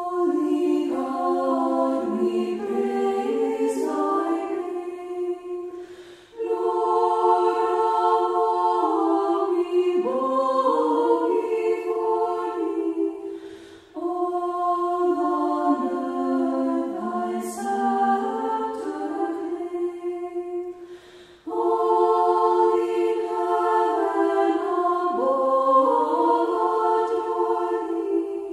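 A choir singing a cappella in harmony, in phrases of about seven seconds with brief breaks between them.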